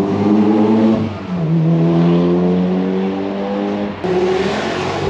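A car engine accelerating. Its note rises, drops suddenly about a second in, then climbs slowly again, and a rush of noisier sound comes in near the end.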